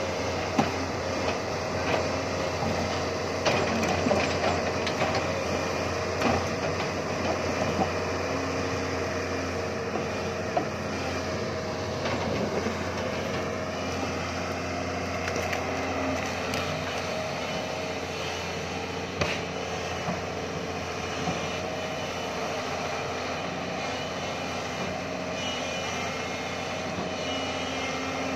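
Doosan crawler excavator running and working: a steady diesel engine note with hydraulic whine, broken by scattered clanks and knocks of the machine.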